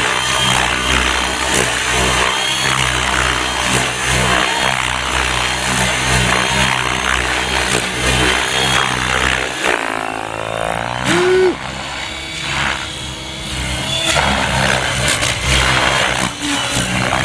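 Gaui X7 radio-controlled helicopter flying 3D manoeuvres at low head speed: steady rotor noise that swells and eases as the load changes. About ten seconds in the sound dips and a short rising-and-falling whine is heard.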